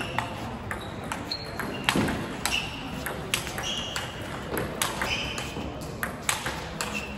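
Table tennis rally: the plastic ball clicking sharply off the rackets and pinging short and high on the table, several strokes a second apart in an uneven rhythm, with more ball clicks from neighbouring tables.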